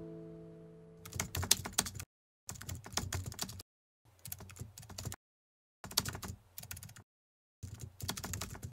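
Computer keyboard typing sound effect: five bursts of rapid key clicks, each about a second long, separated by abrupt silent gaps. In the first second the tail of a guitar tune fades out.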